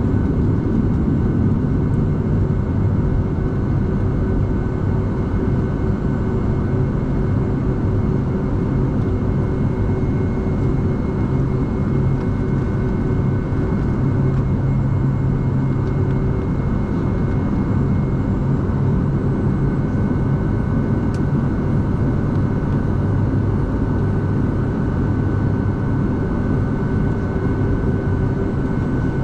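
Boeing 757-200's jet engines running steadily at idle, heard inside the cabin as a constant rumble with a steady whine over it, as the airliner taxis.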